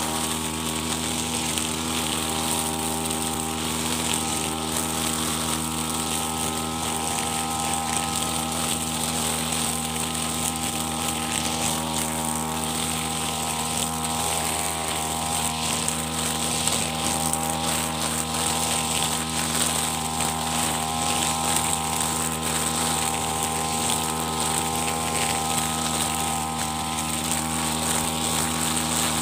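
Petrol brush cutter with a nylon trimmer line running at steady high speed while cutting grass, its engine holding an even pitch over a constant high hiss of the spinning line.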